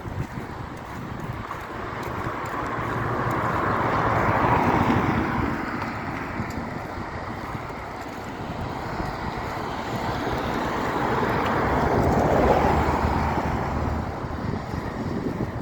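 Two road vehicles passing by one after the other, each swelling up and then fading away as it goes past, the second about eight seconds after the first.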